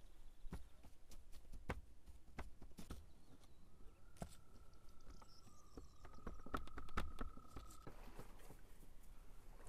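Faint, scattered light taps and pats of hands dividing and setting down small balls of dough on a plastic-covered table. A faint steady high tone sounds from about a third of the way in until shortly before a soft rustling haze near the end.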